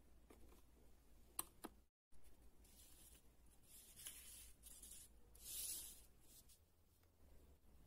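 Faint handling of small craft pieces: two light clicks as a small plastic piece is set down on the cardboard counter, then a soft rubbing of paper-covered cardboard in the hands. The rubbing swells briefly about five to six seconds in.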